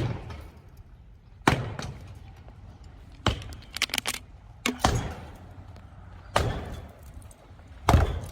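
Sledgehammer blows striking a large structure being demolished: six heavy impacts, roughly one every one and a half seconds, each with a brief ringing tail, and a quick run of smaller knocks midway.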